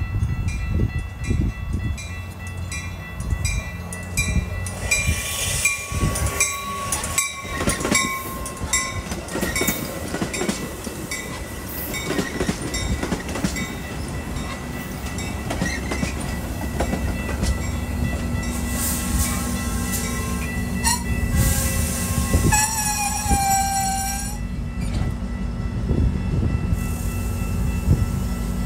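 Metra push-pull commuter train passing close by: stainless bi-level gallery coaches rumbling and clicking over the rails, with a brief squeal that falls in pitch about three-quarters of the way through. A steady low diesel drone builds near the end as the locomotive pushing at the rear draws near.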